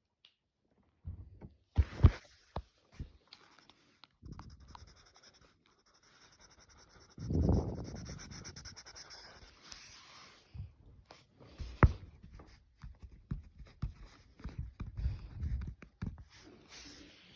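A drawing tool scratching and rubbing in coloring strokes, with scattered taps and clicks of handling. There is a louder swell of noise about seven seconds in.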